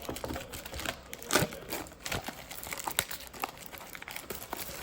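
Plastic wrapping of trading card boxes and packs crinkling and tearing as it is opened by hand, in irregular sharp crackles. The loudest is about a second and a half in.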